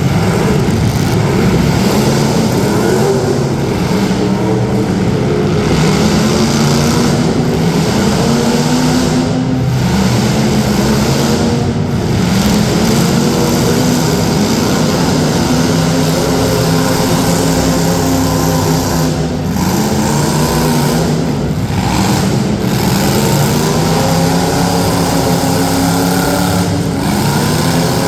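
Several demolition derby street stock car engines revving together, their pitches rising and falling as the drivers work the throttles.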